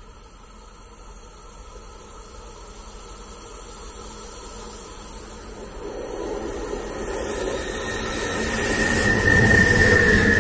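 A train approaching on the line, its rumble growing steadily louder, with a high steady wheel squeal coming in near the end.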